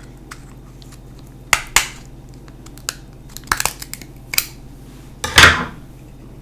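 Cooked crab leg shell cracked and snapped apart by hand: a pair of sharp cracks a second and a half in, a cluster of smaller snaps a little later, and the loudest, longest crunch near the end.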